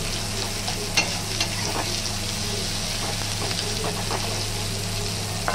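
Sliced onions sizzling steadily in hot oil in an iron karai, with a spatula scraping and tapping against the pan now and then as they are stirred.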